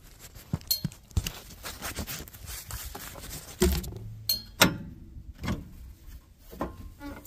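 Leaf-collection hopper on a mower's bucket being tipped to dump, knocking and clattering in a string of irregular sharp knocks, the loudest a little past halfway.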